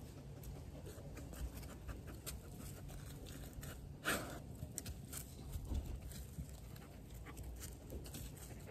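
A dog breathing and sniffing right at the microphone, with many small clicks and rustles as its nose and fur touch the camera, and one louder rub about four seconds in.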